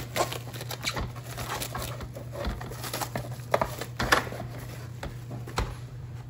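Clear plastic film crinkling and crackling as it is peeled and torn off a plastic mushroom tray, in irregular small crackles with a couple of louder snaps about three and a half and four seconds in.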